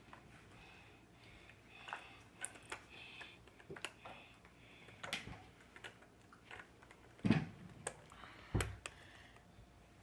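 Handling noise: scattered small clicks and taps of hard objects being handled, with two louder thumps about seven and eight and a half seconds in.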